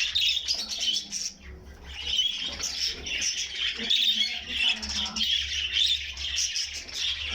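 Many caged pet birds chattering, chirping and squawking together in a dense, continuous chorus that thins briefly about a second and a half in, over a low steady hum.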